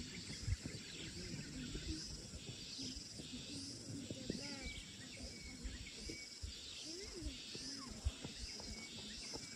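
Outdoor field ambience: high-pitched animal calls repeating at an even pace, about one a second, over faint low sounds and a few short thumps.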